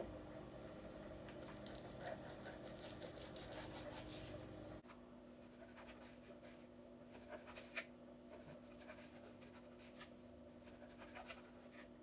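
Faint, scattered taps and scrapes of a chef's knife cutting raw bacon into pieces on a thin plastic cutting mat, over a faint steady hum.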